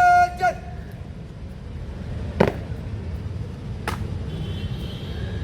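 The drawn-out tail of a shouted parade drill command ends just after the start, followed by a short shouted syllable. Then come two sharp knocks about a second and a half apart over a steady low outdoor rumble.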